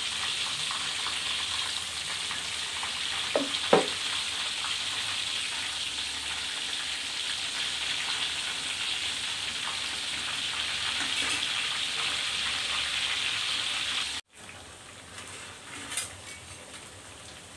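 Tempeh slabs deep-frying in hot oil in a wok, a steady bubbling sizzle. There is a brief knock a little under four seconds in. Near the end the sizzle drops suddenly to a quieter level.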